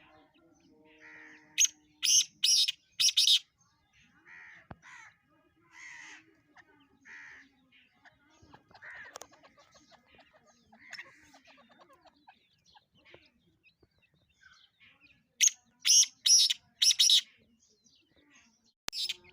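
Black francolin calling: two runs of four or five loud, harsh, grating notes, one near the start and another about fifteen seconds in, with softer single calls in between.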